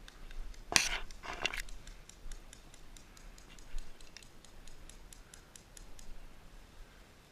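Airsoft gunfire: two loud, short bursts about a second in, then a run of faint, sharp cracks, roughly three a second, for several seconds.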